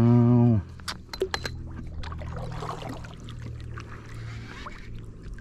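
A man's brief drawn-out vocal groan, then a few sharp clicks and knocks of fishing gear on a plastic kayak, over a faint steady hum.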